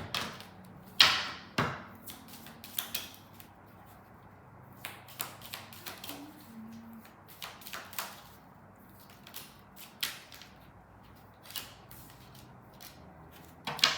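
Tarot cards being handled: a string of irregular, sharp taps and flicks, the loudest about a second in.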